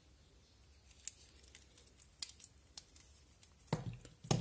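Faint handling noise from a plastic clip-on smartwatch charging cradle and its USB cable: a few sharp, scattered plastic clicks, then a cluster of louder knocks near the end.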